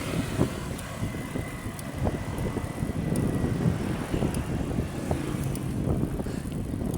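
Bicycle being ridden: steady rumbling road and tyre noise, with faint high ticks about once a second.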